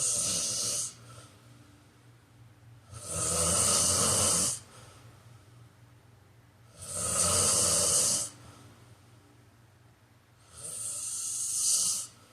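A man snoring in his sleep, with about four snores each roughly a second and a half long, coming about every three and a half to four seconds with quiet pauses between. The first snore is already under way at the start.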